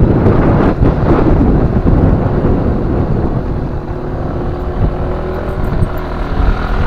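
A vehicle engine running under heavy wind buffeting on the microphone, a dense low rumble with a faint engine tone that rises slightly partway through.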